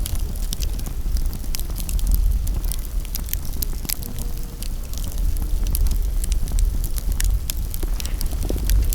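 Campfire wood burning, crackling with many irregular sharp pops, over a steady low rumble.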